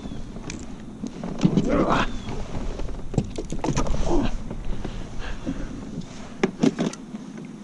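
Irregular knocks, clicks and scraping rustles of gear being handled aboard a fishing kayak, with a few sharp thunks near the end.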